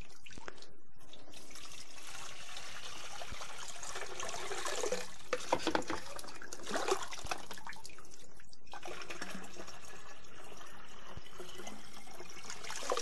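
Pickling brine gurgling and sloshing as a meat brine injector is filled, with a few soft handling clicks about halfway through.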